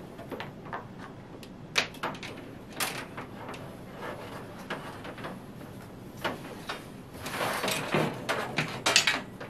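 Scattered clicks, knocks and rustling of a plug, power supply and cables being handled overhead, busiest in the last two seconds or so.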